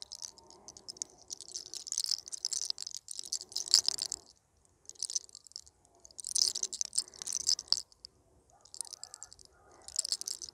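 Fingers rubbing, rolling and tugging small locks of hair close to the microphone: a dry, high-pitched crackling rustle in several bursts with short pauses between pulls.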